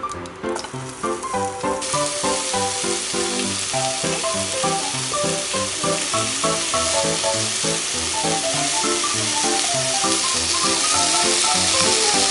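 Cut vegetables sizzling as they fry in olive oil in a pan, a steady loud hiss that starts suddenly about two seconds in, over background music.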